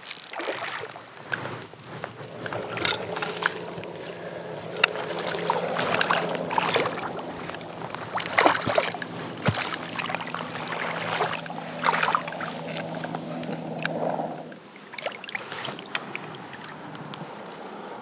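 A hooked rainbow trout thrashing and splashing at the surface as it is fought and scooped into a landing net, with uneven bursts of splashing and sharp slaps. A low steady hum runs underneath until near the end.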